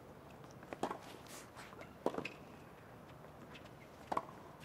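Tennis rally on a hard court: three sharp racket strikes on the ball, the second about a second and a quarter after the first and the third about two seconds later.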